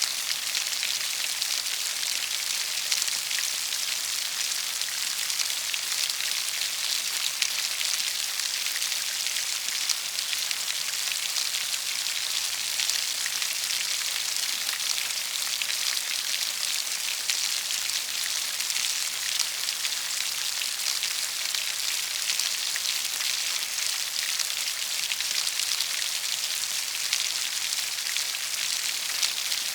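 Steady rain falling, a dense, even patter of drops, with a few sharper drops standing out now and then.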